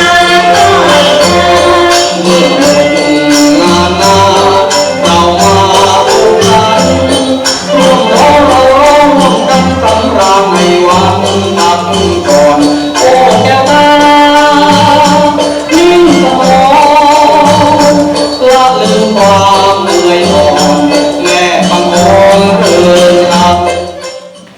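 Thai folk song music with singing over a steady, repeating percussion beat, dropping away sharply near the end.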